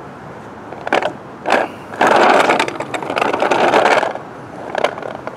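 Wheels of a four-wheel furniture dolly rolling over a curb ramp on concrete. Two knocks come about a second in, a rattling rumble of wheels follows for about two seconds, and a few more knocks come near the end as it goes over the ramp's raised ridges, not smoothly.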